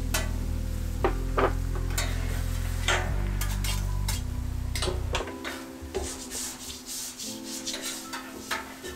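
Metal spatula scraping and clicking on a hot flat-top griddle as cut steak is scooped onto a plate, with light sizzling. Background music with a bass line plays throughout.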